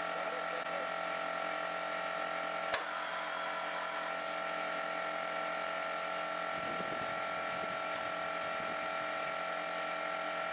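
A steady mechanical hum with a constant high whine, and a single click about three seconds in.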